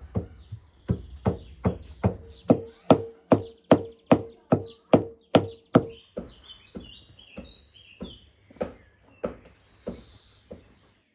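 A steady run of heavy thumps, nearly three a second, with a ringing tone under them; from about six seconds in they grow weaker and more widely spaced, then stop near the end.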